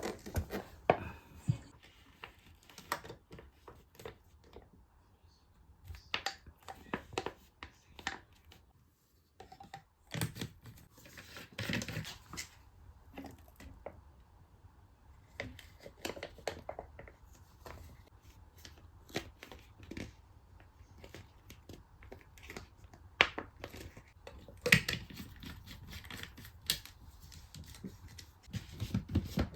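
Irregular small clicks, knocks and rustling, the sound of things being handled and moved about during household chores.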